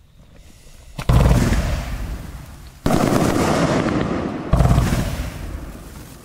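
A 25-shot, 30 mm fireworks cake (battery) firing. After a faint hiss, it fires three loud volleys about a second and three-quarters apart, each a sudden bang followed by dense crackling that fades away.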